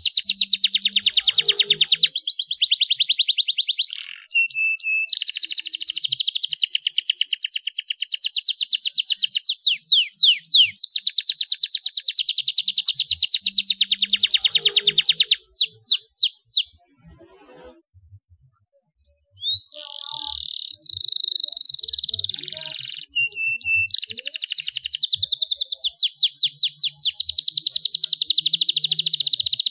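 Domestic canary singing a long, loud song of rapid trills and rolls, with quick downward-sweeping notes. The song breaks off for about two seconds a little past the middle, then starts again.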